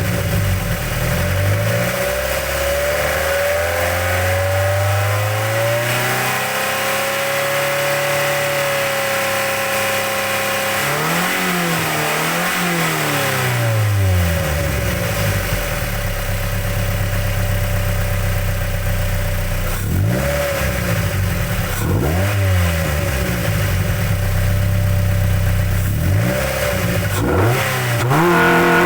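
Mazda MX-5 NC1's 2.0-litre MZR inline-four, fitted with aftermarket cams and a cold air intake, heard from under the bonnet with loud intake noise. The revs climb and drop several times, as when pulling through the gears and shifting, with steadier stretches between.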